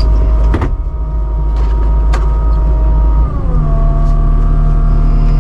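Kubota SVL75-2 skid steer's diesel engine running with a steady whine over its rumble. The pitch drops about three and a half seconds in as the engine slows, and two sharp knocks come in the first half.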